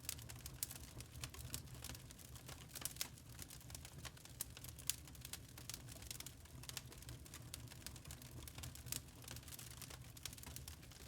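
Log fire crackling in a fireplace: irregular sharp pops and snaps of burning wood over a low steady rumble, with the loudest snap about five seconds in.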